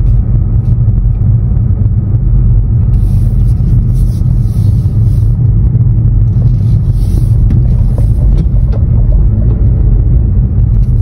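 Car driving at low speed, heard from inside the cabin: a loud, steady low rumble of engine and road noise, with stretches of higher hiss about three and seven seconds in.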